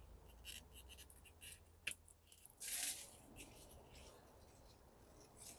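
Faint rustling and small clicks of pepper plants being handled as peppers are picked, with a louder rustle about two and a half seconds in.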